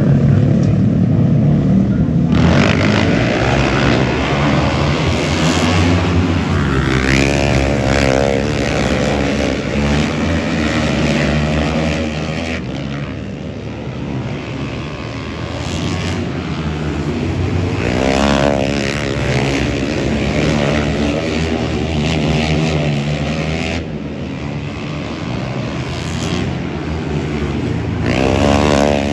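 Vehicle engines running and revving, their pitch rising and falling several times as they pass.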